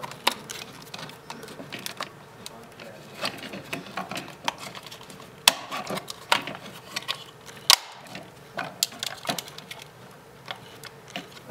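Irregular plastic clicks, taps and snaps as the parts of a MoPod camera rotator's plastic housing are handled and fitted together, with two sharper clicks about five and a half and eight seconds in.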